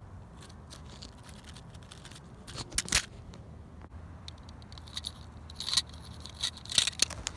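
Hexbug toy robot beetles clicking and scraping on dirt, with scattered light clicks, a few sharper ones about three seconds in and again near the end, over a faint low steady hum.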